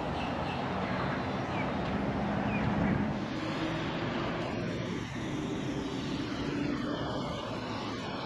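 A distant engine drone over a steady outdoor rumble, swelling to its loudest about three seconds in.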